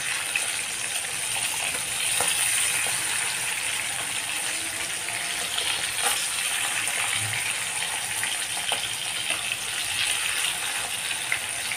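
Fish pieces sizzling as they shallow-fry in oil in a non-stick kadai, a steady hiss throughout. A few light taps and scrapes of a metal spatula come through as the pieces are turned over.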